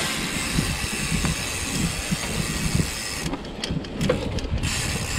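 Mountain bike ridden along a dirt trail, picked up by a GoPro: an uneven low rumble and rattle over a steady hiss.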